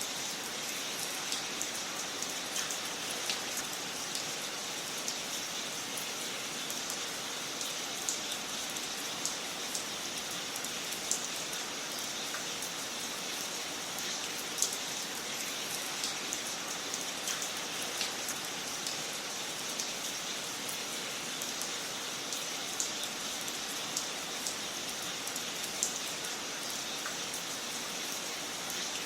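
Wood fire crackling in a fireplace: a steady hiss with scattered sharp pops and snaps at irregular intervals.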